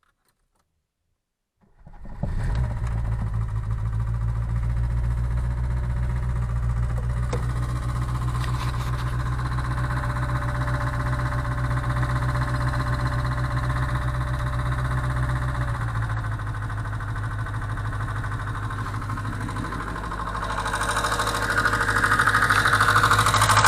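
VAZ 2107 four-cylinder engine starting about two seconds in and then idling steadily, with the valve train tapping. The tapping persists even after valve adjustment, which the owner puts down to worn rocker arms. The sound gets louder near the end.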